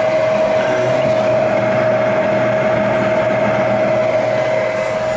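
Lennox G51 gas furnace's induced draft motor running steadily, a constant whine over a low hum.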